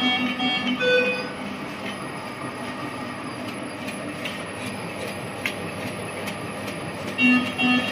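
High-speed film label cutting machine running with a steady mechanical whir. A pitched tone pulses about three times a second at the start and again near the end, and a few short clicks sound in between.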